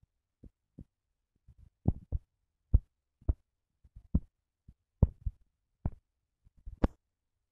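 Fingertip taps on a phone touchscreen while typing on the on-screen keyboard: about a dozen soft, dull taps at an uneven pace, with a sharper click near the end.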